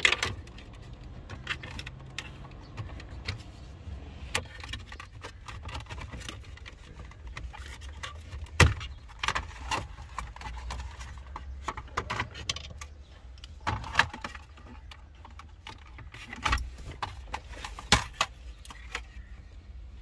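Plastic interior trim of a car's center console clicking, knocking and rattling as it is handled and pried loose around the gear shifter, with scattered sharp clicks, the loudest a little past the middle. A steady low rumble runs underneath.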